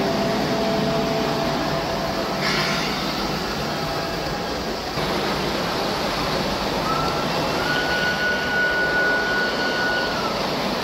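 Model train running along a layout's track: a steady running noise, with a thin high whine in the last few seconds.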